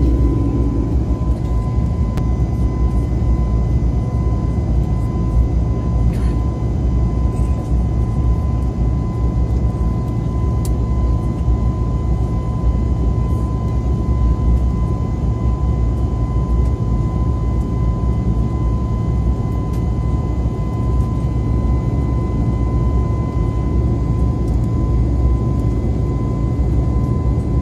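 Airliner cabin noise in flight: a steady, even roar with a thin steady whine running through it.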